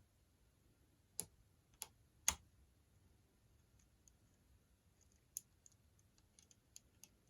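Faint metallic clicks of a lock pick and tension wrench working the pins of a pin-tumbler padlock: three sharper clicks between about one and two and a half seconds in, then a scatter of lighter ticks near the end.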